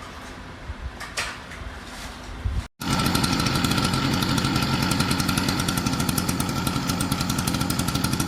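A small engine running steadily with a fast, even pulse. It starts abruptly about three seconds in, after a quiet stretch with a few soft clicks.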